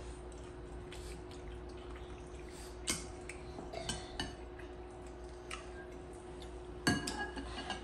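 Tableware clatter during a meal: a spoon scraping and tapping on ceramic plates and bowls, giving scattered light clicks and clinks, with one sharper ringing clink near the end. A faint steady hum runs underneath.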